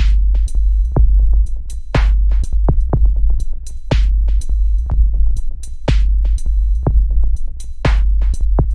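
Electronic music with a drum-machine beat: a heavy sustained bass, a sharp snare-like hit about every two seconds and quicker hi-hat ticks between them.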